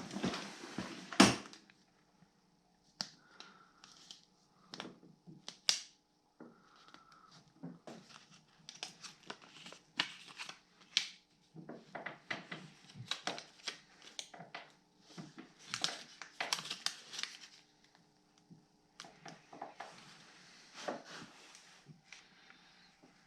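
Crinkling, crackling and tearing as the adhesive backing paper is peeled off a heated grip pad and the pad is pressed onto the handlebar bit by bit, with scattered sharp clicks, the loudest about a second in.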